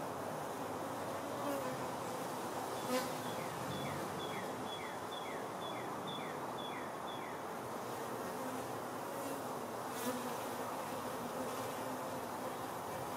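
Honey bees buzzing as they fly around and past their hive, the drone rising and falling as individual bees pass close. A run of about eight short falling chirps sounds from about three to seven seconds in, and there are two sharp ticks, about three and ten seconds in.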